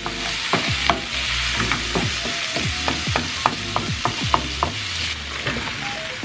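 Diced onion sizzling in hot oil in a frying pan, with a steady hiss. A wooden spoon stirring it knocks and scrapes against the pan many times.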